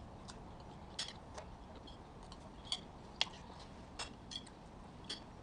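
Sparse, irregular light clicks and ticks, about ten of them, over a faint steady background.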